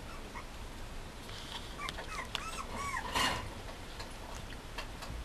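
Mame shiba puppy whimpering: a quick run of short, high-pitched whines that rise and fall, about two seconds in, ending in a louder, rougher cry.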